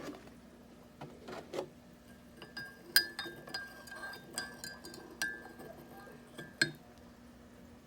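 A spoon stirring cream into a mug of coffee, clinking repeatedly against the side of the mug with a ringing tone. It ends with one sharper clink.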